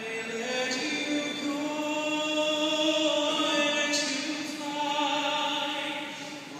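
A solo male voice singing a cappella with no accompaniment, holding long sustained notes.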